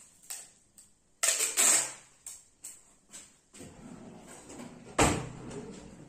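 Sticky tape pulled off the roll with a rip about a second in, then small handling clicks, and a kitchen drawer pulled open, ending in a sharp knock near the end.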